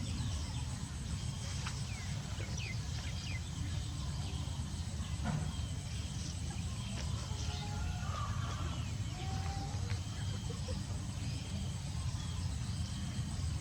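Outdoor ambience: a steady low rumble with scattered short, high chirps and a single click about five seconds in.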